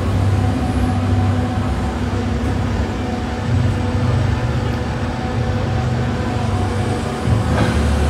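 Komatsu PC4000 shovel excavator's 16-cylinder diesel engine running under load with a steady low drone as the boom and front shovel lift. The drone dips briefly near the end and comes back louder.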